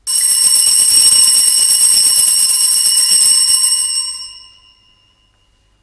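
Altar bells shaken in a continuous bright ringing peal that starts suddenly, holds for about four seconds, then dies away with a lingering ring: the bells rung at the elevation of the chalice during the consecration at Mass.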